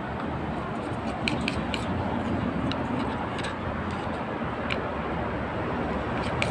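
A plastic spoon stirring a wet glue mixture in a plastic bowl, giving a handful of light clicks and scrapes over a steady low background rumble.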